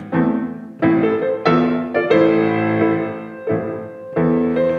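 Grand piano playing a solo passage of a song accompaniment, with no voice: a series of struck chords, each left to ring and fade before the next.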